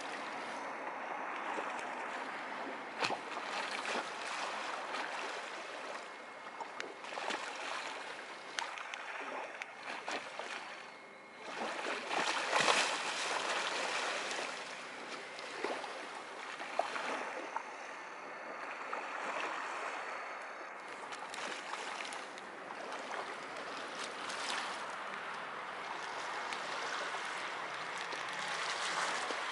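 Small waves lapping and splashing against a harbour seawall and its steps, an irregular wash of water with small slaps.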